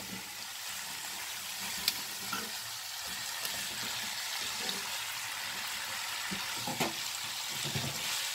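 Pork and chicken pieces frying in a pot of sofrito, sizzling steadily while being stirred, with a sharp utensil clink about two seconds in and some scraping near the end.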